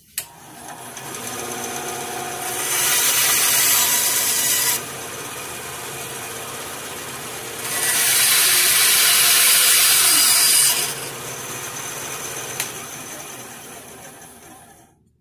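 Bandsaw switched on with a click, its motor and blade spinning up, then cutting through a small wooden block in two loud passes: the straight cut and the diagonal cut that open the whistle's notch. After the second cut the saw is switched off and slowly runs down.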